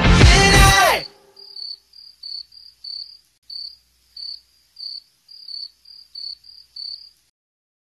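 The last notes of a song fade out about a second in, then crickets chirp, short high chirps about twice a second, stopping near the end.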